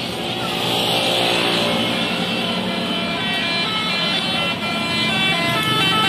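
Bus engine running. About halfway in, a multi-tone telolet bus horn starts sounding a tune of several notes at once that change in steps.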